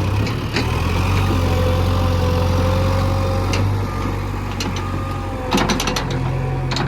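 Heavy diesel engine running steadily, with a quick cluster of sharp clanks about five and a half seconds in and a few scattered clicks.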